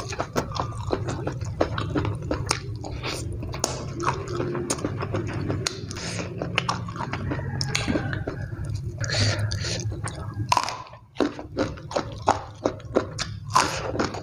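Close-up chewing of fried chicken and rice eaten by hand, with many short wet mouth clicks and smacks.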